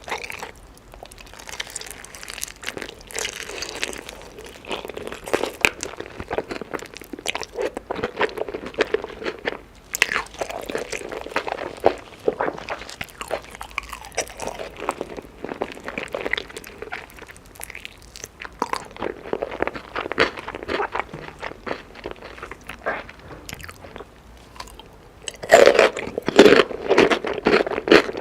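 Chicken being bitten and chewed close to the microphone: a steady run of crackly, crunchy bites and chewing, louder near the end.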